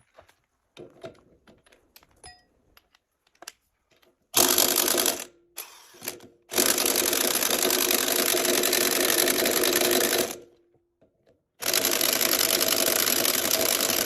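Impact wrench hammering on the tractor's wheel bolts in three runs: a short burst, a longer one of about four seconds, and another starting near the end, with a few faint metal clinks before it. The bolts are not coming loose.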